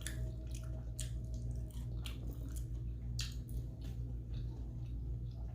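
Close-up mouth sounds of someone chewing a bite of collard greens: irregular wet clicks and smacks. A steady low hum runs underneath.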